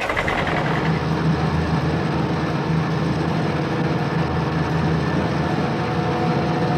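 Truck engine sound effect running steadily with a low hum, laid over a toy garbage truck driving off.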